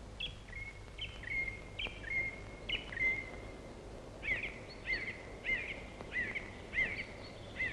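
A songbird calling in repeated whistled notes. First come four spaced notes, each a quick downward stroke into a short held tone. Then, about four seconds in, a faster run of arched notes follows at roughly one and a half a second, over a faint steady low hum.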